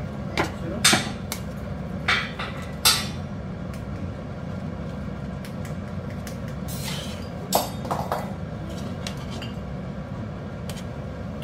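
Tongs clacking against a metal stockpot while lifting and turning boiled chicken pieces in broth: several sharp knocks in the first three seconds and two more about eight seconds in, over a steady low hum.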